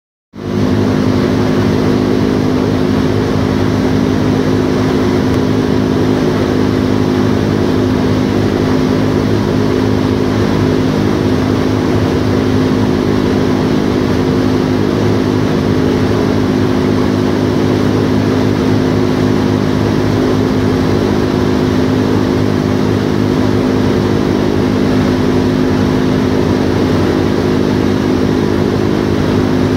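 The four Wright R-1820 Cyclone nine-cylinder radial engines and propellers of a B-17G bomber running steadily in flight, heard from inside the plexiglass nose compartment: a steady drone of deep engine tones over a rushing hiss of airflow.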